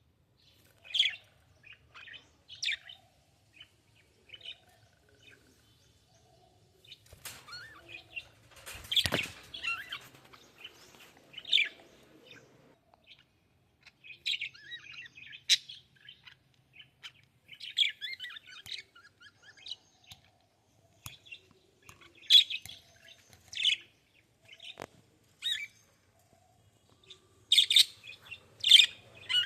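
Small pet birds chirping in short, irregular bursts with pauses between them, busiest near the end.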